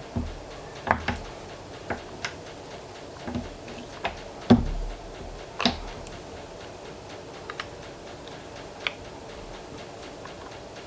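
Irregular clicks and knocks of small metal regulator parts and tools being handled on a workbench, the loudest a knock with a dull thud about four and a half seconds in, over a steady background hum.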